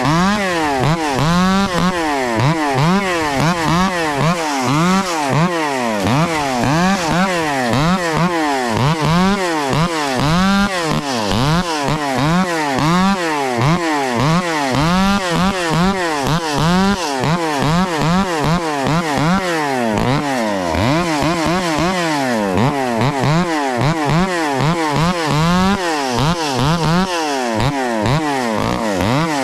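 Echo 670 two-stroke chainsaw revved up and down over and over, its pitch climbing and dropping about once a second, as it cuts limbs off a felled tree.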